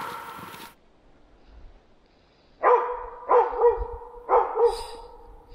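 Hunting laika barking at a black grouse it has treed, baying to show the hunter where the bird sits. About five barks come in quick pairs in the second half.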